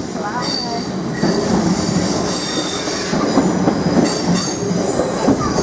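Class 444 electric multiple unit running across a level crossing, with a continuous rumble from the wheels and coaches and thin high-pitched wheel squeal that comes and goes.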